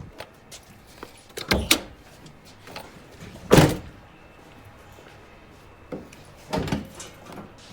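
A few separate clunks and thumps from a pickup truck's door and hood latch as the hood is being opened. The loudest thump comes about three and a half seconds in.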